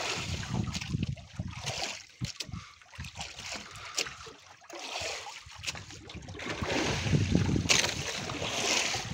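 Sea water washing and slapping against an outrigger fishing boat, with wind buffeting the microphone in uneven gusts that swell louder near the end. A few light clicks from fishing tackle being handled.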